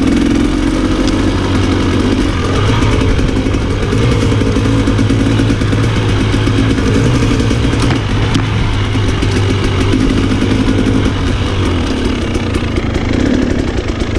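Off-road motorcycle engine running at fairly steady, low revs, with a few short knocks along the way.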